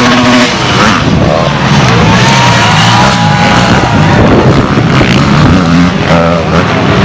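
Motocross motorcycle engines revving hard on the track, the pitch rising and falling with the throttle.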